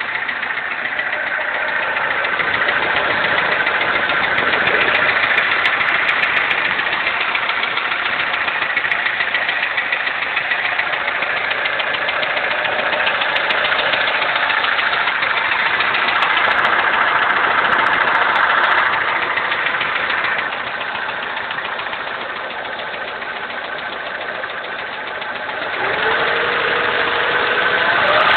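Honda D15B four-cylinder engine running with a rapid, continuous knock from the engine that the owner cannot identify and says has not worsened. It drops back a little past the middle, then the revs rise near the end.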